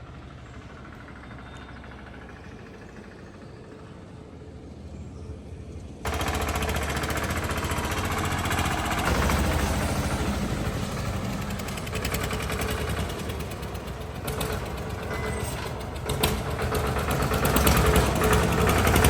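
Tractor engine running with a fast, knocking beat, fairly quiet at first and then suddenly much louder about six seconds in.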